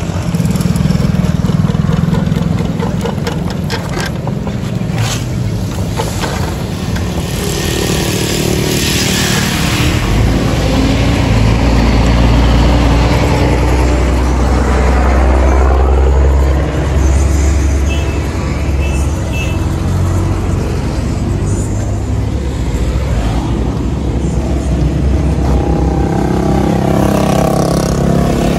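Portable core drill running steadily as it cuts a water-cooled core out of asphalt paving.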